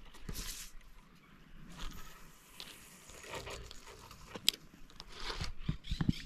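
Close handling noises: rustling and crunching, with a sharp click about four and a half seconds in and a few soft thumps near the end.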